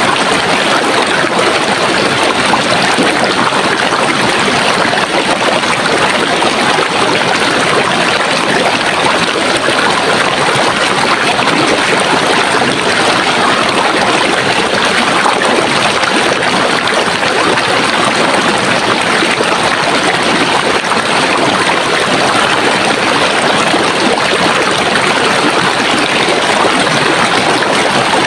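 Running water in a stream, a steady rushing that does not change.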